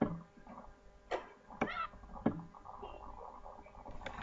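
A basketball bouncing on a concrete driveway: a handful of sharp, irregularly spaced knocks over a faint hum, heard in a played-back home video.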